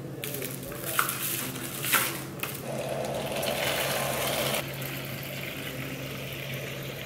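Two light taps while pre-workout powder is scooped through a paper funnel into a plastic bottle. Then water runs from a kitchen sink faucet into the bottle, filling it; the stream is loudest in the middle and softer near the end.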